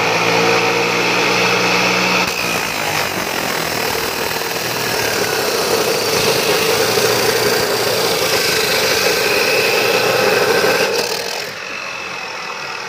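Electric abrasive cut-off saw grinding through the rusty metal barrel of a homemade gun: a loud, steady grinding whine. Near the end the cut finishes, and the saw runs on more quietly.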